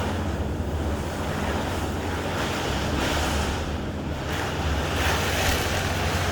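Strong wind buffeting the microphone: a steady low rumble, with a rushing that swells and fades in gusts every couple of seconds.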